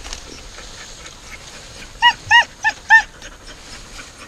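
Beagle-type hunting dog barking at game cornered in a hole: four quick, high yelps close together about two seconds in.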